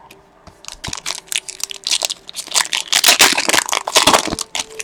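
Hockey card pack wrapper being crinkled and torn open by hand, a dense run of crackling that builds up about half a second in and is busiest in the second half.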